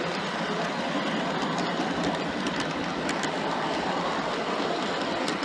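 Wheels of a G-scale model train car rolling along garden-railway track: a steady rolling rumble with a few faint clicks.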